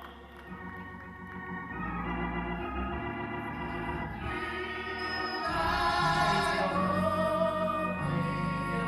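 Church organ playing long held chords, growing louder about halfway through.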